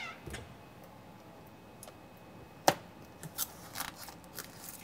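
Masking paper being peeled off a laser-cut three-ply engraving sheet in the laser bed: soft crinkles and rustles, with one sharp click about two and a half seconds in.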